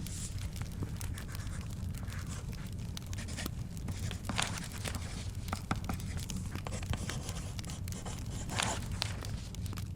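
Crackling fire popping in scattered clicks over a steady low rumble, with brief scraping rustles of paper swelling twice, about four and a half and eight and a half seconds in.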